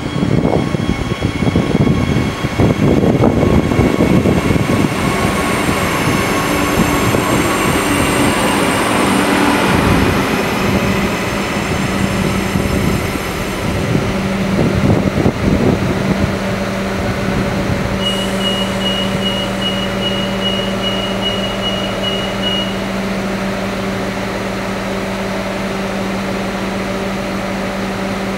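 An Adelaide Metro 3000-class diesel railcar pulls into the platform: wheels rumble and clack on the rails, with high squealing as it brakes. Once it has stopped, its diesel engine idles with a steady low hum. About two-thirds of the way in, a run of high electronic beeps, about two a second, sounds for some five seconds.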